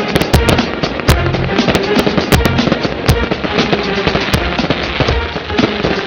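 A 299-shot fan-shaped fireworks cake firing in rapid succession, with many sharp bangs and crackling bursts. Music plays along with it, with steady bass notes underneath.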